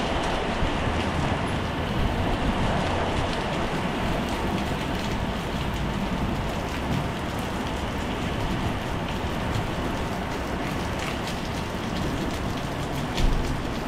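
Heavy rain falling on a wet tiled patio and its puddles: a steady hiss with many small, sharp drop splashes close by, over a low rumble. A brief low thump comes near the end.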